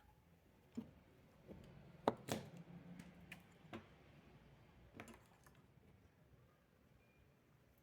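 Faint handling noise: a few soft taps and knocks as a felt craft piece is moved and set down on a work table, the loudest pair about two seconds in.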